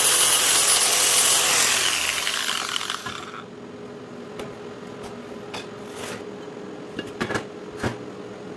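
Angle grinder with a sanding disc grinding down a weld bead on a cast aluminium bracket, then switched off and spinning down about two to three seconds in. After that a faint steady hum with a few light knocks as the metal part is handled.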